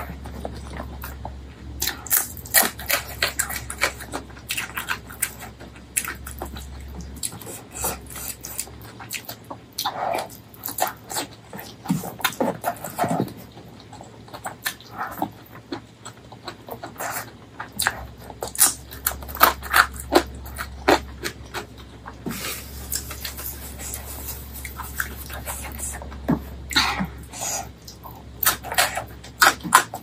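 Close-miked wet chewing, lip smacks and sucking sounds of someone eating saucy spicy pork leg curry, many quick, irregular smacks one after another.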